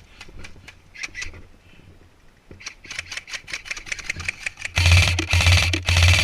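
Airsoft M4 electric gun firing. A few scattered clicks come first, then a quick run of shots from about two and a half seconds in. From near five seconds it fires loud full-auto bursts of about half a second each with brief gaps, the gearbox rattling over a low motor hum.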